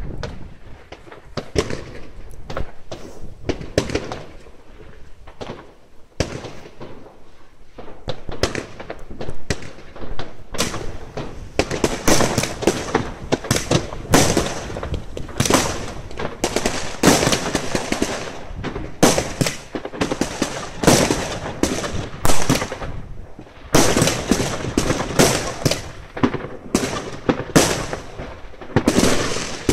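New Year's Eve fireworks going off: many sharp bangs and crackling bursts of aerial shells, sparse at first and coming thick and fast from about ten seconds in.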